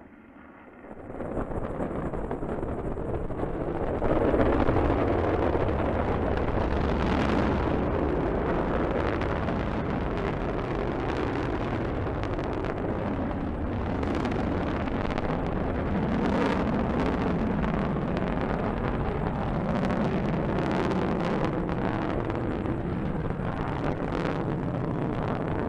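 Roar of a Delta II rocket's engines climbing away after liftoff: continuous noise that comes up about a second in, grows louder about four seconds in and holds steady, with scattered crackles.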